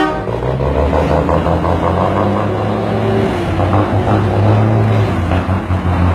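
Loaded dump truck's diesel engine pulling away under load, working up through the gears; the engine note dips and picks up again about halfway through and once more near the end as it shifts.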